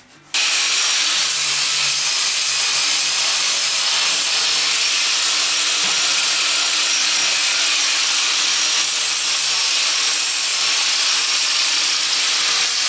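Steady grinding hiss of a handheld power tool working a strip of sheet metal, held at an even level, starting abruptly just after the start and cutting off abruptly at the end.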